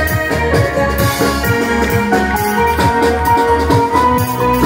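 Jazz band music with a steady drum beat under held melody notes.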